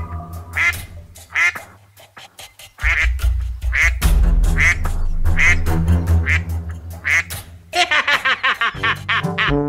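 Duck quacking over and over, about one quack every second, over background music with a low bass line; near the end the quacks come in a quick run.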